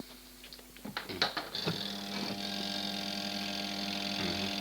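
Spin-dryer motor of a twin-tub washing machine switched on and buzzing with a steady electrical hum instead of spinning freely, because the spin brake is still holding it, as the repairer judges. A few light clicks come about a second in, and the hum grows fuller and louder shortly after.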